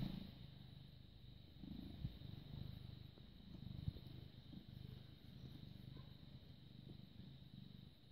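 British Shorthair cat purring close to the microphone: a faint, low rumble that swells and fades in a slow rhythm. A sharp knock sounds right at the start.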